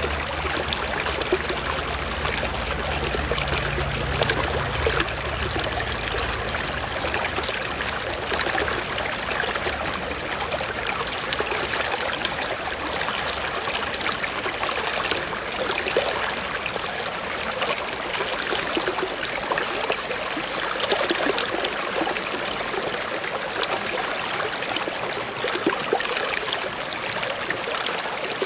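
Small stream flowing and trickling, a steady even rush of running water. A low rumble underneath fades out in the first several seconds.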